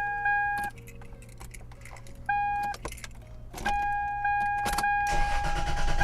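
1998 Toyota 4Runner's dashboard warning chime sounding on and off as a steady high tone, with keys clicking in the ignition. Near the end the starter cranks the engine and it begins to catch, the immobilizer's ignition cut-off now bypassed with a jumper wire.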